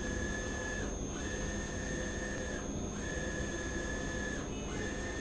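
Roland wide-format inkjet printer running a print job: a steady high whine from its print-head carriage sweeping across the media, breaking off briefly about every two seconds, three times, between passes. A constant faint higher tone and a low hum run beneath it.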